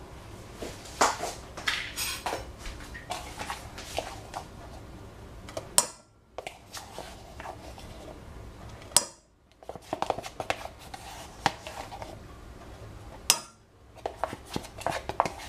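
Metal wire whisk clinking and scraping against the sides and bottom of a stainless-steel saucepan while stirring melted butter and sugar, with cocoa powder being mixed in. The clinks are irregular and keep going, broken by three brief silences.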